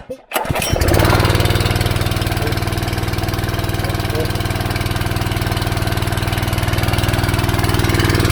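A water pump's engine starts about half a second in and runs steadily with a fast, even beat. The owner takes its trouble to be a stand set too high above the dam inlet for the pump to draw water properly.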